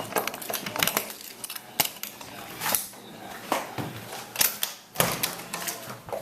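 Raindrops tapping unevenly on a hard surface, a run of sharp irregular clicks from a moderate rain shower.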